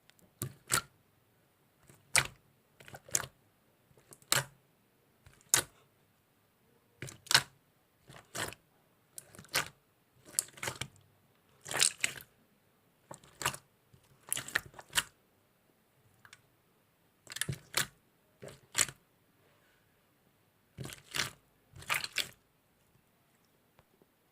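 Slime being squished, making short crackling, clicking bursts that come about once or twice a second with short quiet gaps between them.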